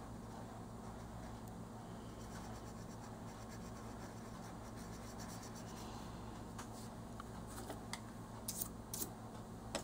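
Faint scratching of an oil-based colored pencil on coloring-book paper as small shading strokes are laid down. Near the end come a few sharp light clicks and taps as the hand moves away from the page.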